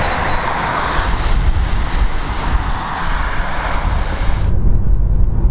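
Wind buffeting the microphone: a loud, steady noise with a heavy low rumble. About four and a half seconds in, the high hiss drops away suddenly, leaving the low wind rumble.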